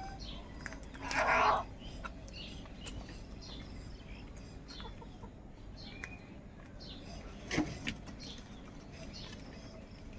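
House crows at a food bowl: one loud, harsh caw about a second in and a short sharp sound about seven and a half seconds in, with faint high chirps throughout.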